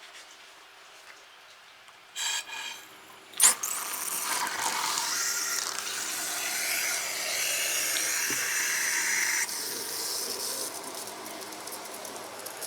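Water spraying from a garden hose nozzle during a leak test of a repaired nozzle fitted with a swivel hose coupling. A short scrape and a sharp click about three seconds in are followed by a steady hiss of spray, which eases somewhat partway through.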